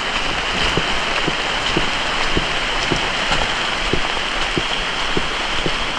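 Heavy rain falling: a steady, dense hiss with scattered drop ticks, starting and cutting off abruptly.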